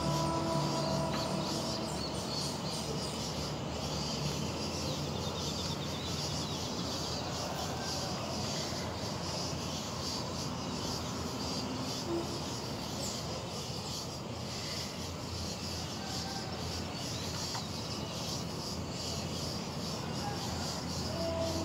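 Outdoor background ambience: a steady low hum with faint, pulsing high chirping running through it.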